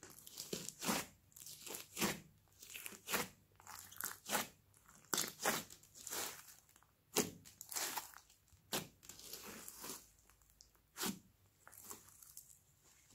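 Hands squeezing, stretching and folding pink slime mixed with foam beads, making irregular crackling pops and squelches that come one to three a second and thin out near the end.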